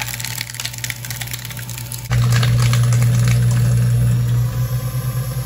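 Heavy-duty paper shredder, rated for credit cards and CDs, running with a steady motor hum while its cutters crunch and crackle through a PET plastic pop bottle. About two seconds in the motor hum gets suddenly much louder and stays loud.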